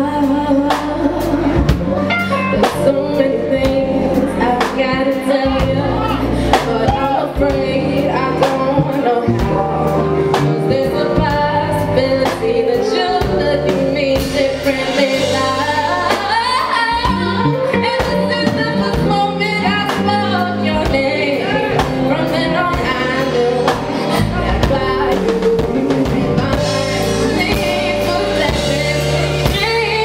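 A woman singing a soul-pop song live, backed by a band of keyboards, electric bass guitar and drums.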